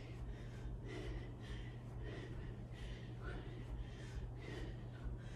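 A woman breathing hard from exertion, short puffs of breath about twice a second, over a steady low hum.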